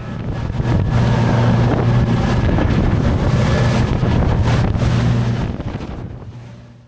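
A motorboat's engine running steadily underway, with wind buffeting the microphone and water rushing along the hull; the sound fades out over the last second and a half.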